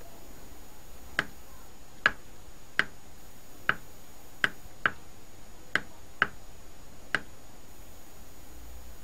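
Push-button switch on an Opel Corsa C radio's control-panel circuit board clicking as it is pressed, about nine sharp clicks at uneven intervals. The multimeter across the switch stays open-circuit while it is pressed: the switch is faulty.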